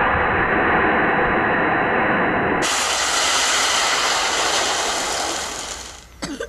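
Plastic sled scraping and sliding over icy snow, a steady rough hiss that fades out near the end.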